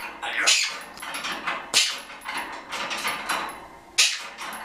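Red-tailed African grey parrot making a run of short, harsh calls, three of them loud, while jingling a small brass cage bell in its beak.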